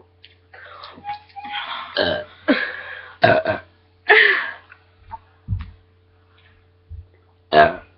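Girls burping several times in a row after gulping carbonated cola: about five loud, rough belches, the loudest near the end.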